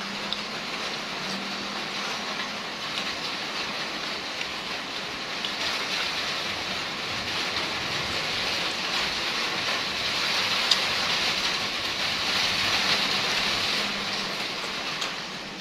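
Steady rain hissing, growing louder in the middle and easing off near the end, with one sharp click partway through.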